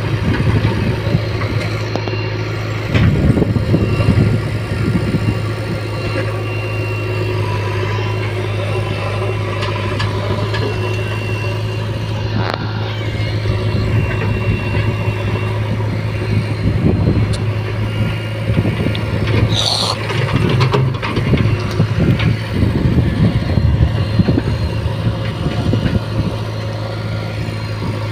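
Diesel engines of a JCB 3DX backhoe loader and a Mahindra tractor running with a steady low drone. The engine revs up in surges about three seconds in and again through much of the second half, as the backhoe works its hydraulics.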